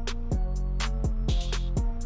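Background music with a steady drum beat over held bass and melody notes.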